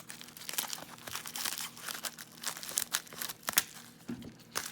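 Packing material crinkling and tearing as a small wrapped package is pulled open by hand, a dense run of irregular crackles and rustles.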